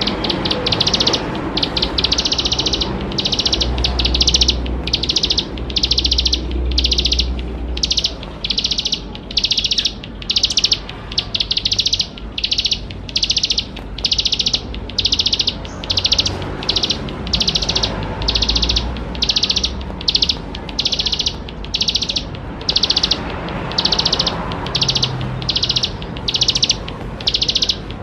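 Ciblek sawah, a small prinia, singing a long run of short, high, buzzy trilled phrases, about one and a half a second.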